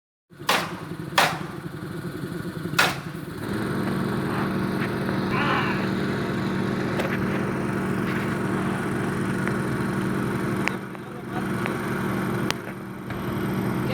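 An engine running steadily, with three sharp knocks in the first three seconds; the hum gets louder about three and a half seconds in.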